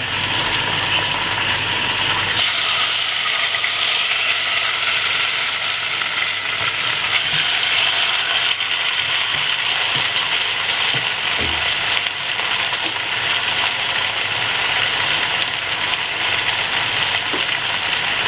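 Jerk-marinated steak frying in hot oil in a non-stick pot: a steady sizzle that turns louder and hissier about two seconds in as the meat goes into the oil, then carries on evenly.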